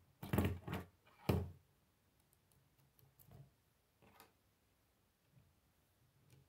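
Plastic K'nex rods and connectors clicking and knocking as they are snapped together by hand, with three loud clicks in the first second and a half and a few fainter ones later.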